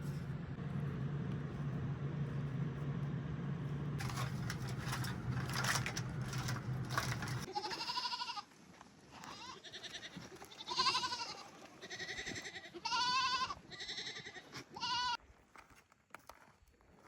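Goats bleating: a run of short, quavering bleats in the second half. Before them a steady low hum cuts off suddenly about seven and a half seconds in.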